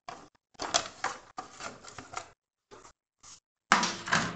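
Scraping and rustling handling noises in short bursts with gaps, from the motorcycle's side cover, just taken off, being moved aside while the phone is held in hand; a louder scrape near the end.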